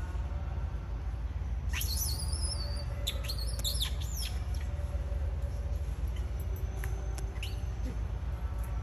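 A few sharp, high-pitched chirping animal calls, clustered between about two and four seconds in, with a couple of fainter ones later, over a steady low rumble.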